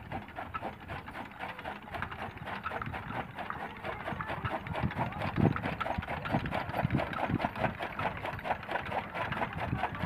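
Bull-powered gear toka (chaff cutter) running, with a quick, even clatter from its gearing and flywheel as green fodder is fed into the blades, and a few heavier knocks around the middle.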